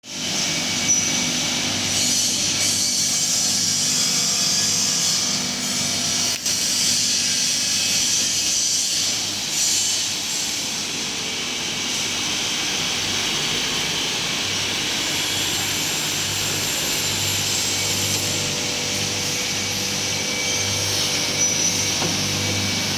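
Glass beveling and edge-grinding machine running steadily, giving a constant grinding hiss over a low hum.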